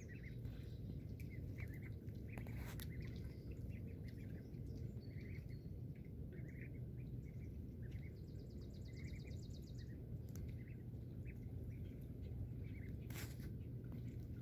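Mallard ducklings giving scattered short peeps, several a second at times, over a steady low rumble.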